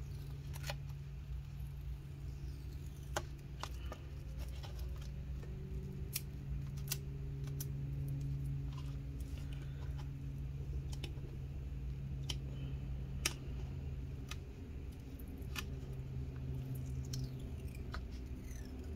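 Old battery adhesive being picked at and peeled off inside a MacBook Pro's case by fingernail and scraper tool: sporadic small clicks and ticks at irregular intervals over a steady low hum.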